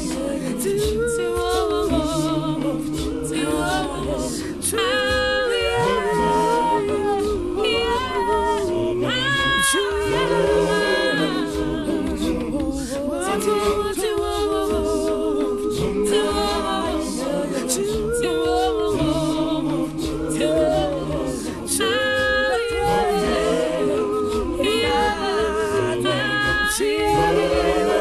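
A cappella vocal group singing a melody in harmony, several voices with a steady rhythmic low part.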